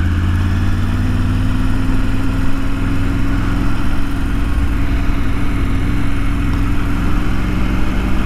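Motorcycle engine running steadily at low street speed, heard from the rider's seat with wind and road noise over it; the engine pitch rises slightly over the first couple of seconds, then holds.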